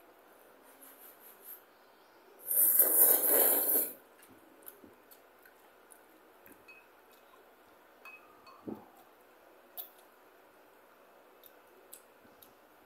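A loud slurp of instant curry noodles lasting about a second and a half, a few seconds in. Afterwards a few small taps of chopsticks and a fork against bowls.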